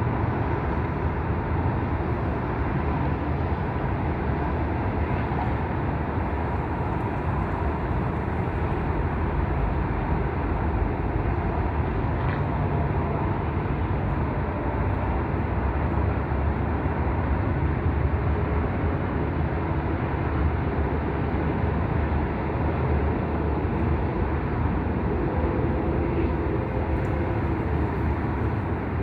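Wind blowing across the microphone: a steady, low, rushing noise with no breaks.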